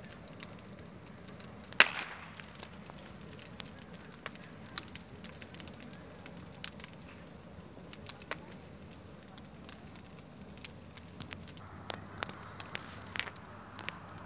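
Bonfire crackling, with scattered sharp pops and one much louder pop about two seconds in.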